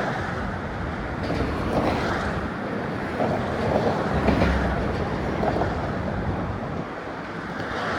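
Steady rumble of passing road traffic mixed with wind buffeting the phone's microphone, with a stronger low rumble about four seconds in.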